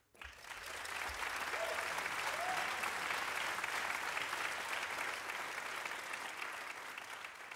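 Small seated audience applauding: the clapping breaks out suddenly after silence, builds within about a second and holds steady.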